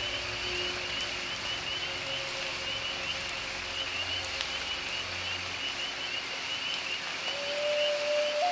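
Quiet ambient meditation soundtrack: a steady held tone over an even, rain-like hiss, with a fast, regular high chirping at about three chirps a second. Near the end the tone moves up and a second held tone joins it.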